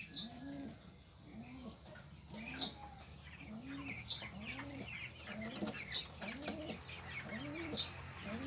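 Domestic pigeons cooing, a low coo that rises and falls, repeated under a second apart, with small birds chirping high and quick behind it.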